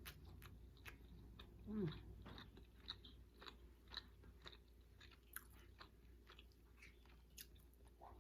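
Faint chewing with many small, irregular mouth clicks, and a short hum about two seconds in.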